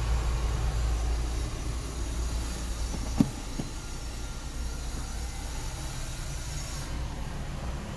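Low steady rumble with a faint hiss, with two light clicks a bit over three seconds in, about half a second apart.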